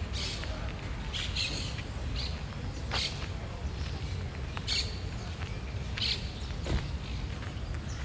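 Street ambience with a steady low rumble, over which small birds give short high chirps about half a dozen times.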